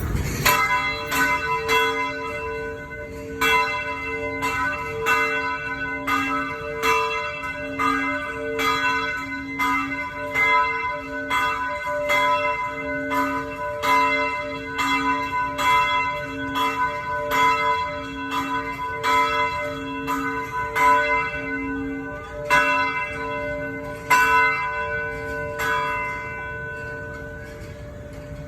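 Church bells pealing: several bells struck in quick, uneven succession, about two strikes a second, their tones ringing on and overlapping. The strikes stop a couple of seconds before the end and the ringing dies away.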